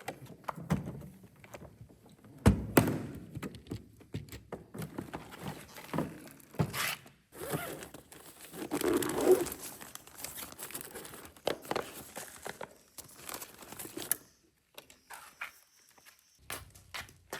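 Irregular knocks and thuds mixed with crinkling, rustling handling noise, the sharpest knock about two and a half seconds in.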